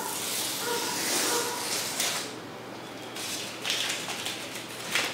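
Utility knife blade scoring a thin 0.45 mm aluminium sheet along a straightedge: a hissing scrape for about the first two seconds, then a pause and a few shorter scraping strokes.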